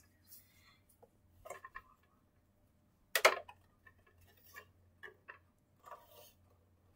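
Scattered light clicks and rustles of toys being handled by hand, with one louder handling sound about three seconds in.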